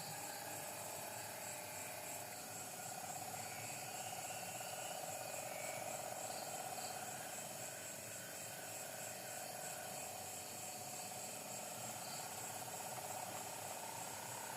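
Faint, steady night-time chorus of insects: a continuous wavering trill in the middle range with a faint, evenly repeating high pulsing above it.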